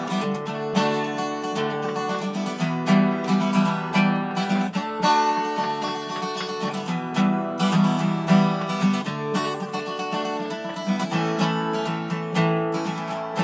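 Acoustic guitar strummed in a steady rhythm, its chords ringing on.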